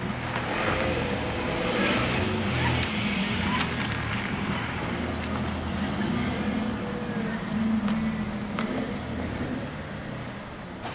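A car driving slowly past and away, its engine and tyres heard over low held notes that shift in pitch every second or so.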